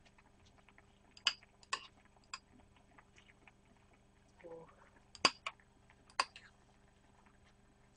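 Metal spoon clinking against a ceramic bowl several times, sharp separate clicks, as a seasoned mixture is stirred. A short hum of voice comes about halfway through.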